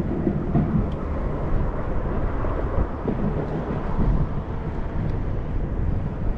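Wind buffeting a camera microphone while riding a fat-tire electric bike, a steady low rumble with no distinct events.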